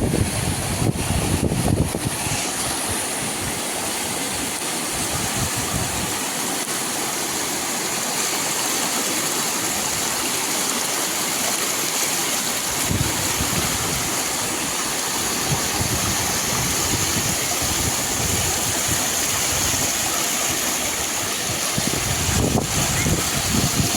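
Floodwater rushing steadily, with wind buffeting the microphone at the start and again near the end.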